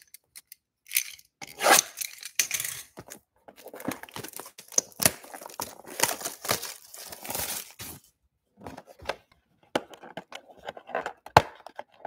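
Plastic shrink-wrap being torn and crinkled off a cardboard trading-card box, then the box's lid flap being worked open, with a sharp snap near the end.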